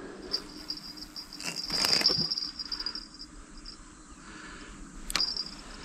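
Insects chirping in a steady, pulsing high trill, with a brief rustle about a second and a half in and a sharp click near the end.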